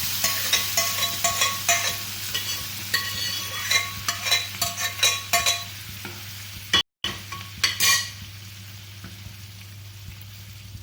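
A metal spoon stirring and scraping in a cooking pan, with quick repeated clinks over a sizzle, as boiled dal is mixed into fried onion-tomato masala. The stirring stops near the end, leaving a faint hiss.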